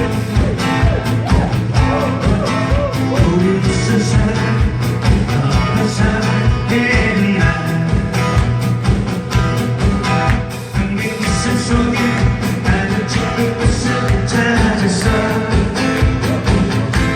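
Live band music with a steady, regular beat and a wavering melody line over it.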